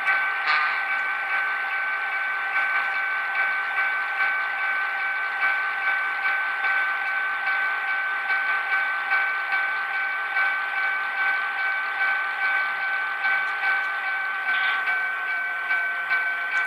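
The DCC sound decoder of an HO-scale Walthers P2K SW9/1200 diesel switcher playing its locomotive sounds through the model's small onboard speaker while it creeps at speed step 1. The sound is a steady tone with a light pulse about twice a second.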